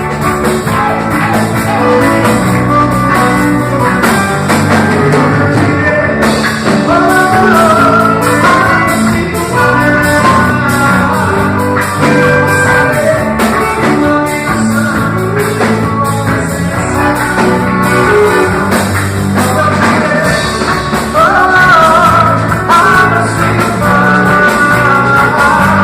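Music: a worship song with a wavering melody line over a steady band accompaniment.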